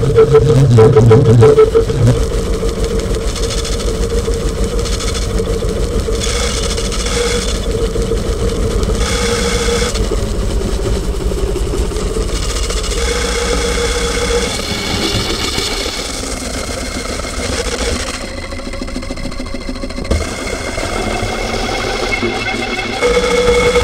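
Homemade noise instrument playing a steady, engine-like drone: a held mid tone over a low rumble, with hissing layers that swell and fade every second or two. About two-thirds through, the rumble drops away and a higher whine comes in, and the sound surges loudly just before the end.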